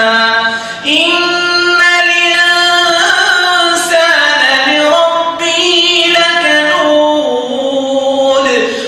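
A man reciting the Quran in the melodic, drawn-out tajweed style, holding long ornamented notes, with a brief pause about a second in.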